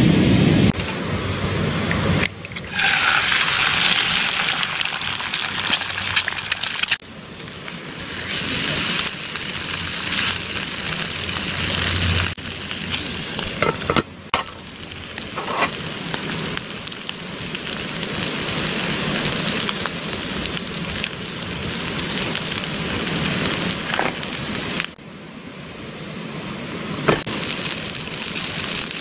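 A steady crackling, sizzling hiss, cut into several short clips that change abruptly, with a few sharp clicks and knocks.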